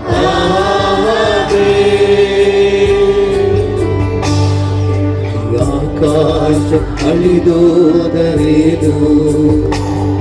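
A choir and congregation singing a Kannada Christian worship song over band accompaniment with a steady beat.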